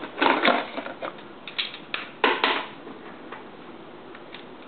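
Coins being fed into the electronic coin acceptor of a water vending machine: light scattered clicks with one sharper clack about two seconds in.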